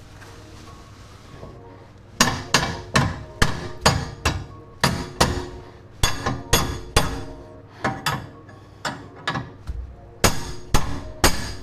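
Hammer blows on metal, a steady run of sharp strikes about two a second starting about two seconds in, with a short pause near the end, knocking a stuck camber arm free of a BMW E36's suspension.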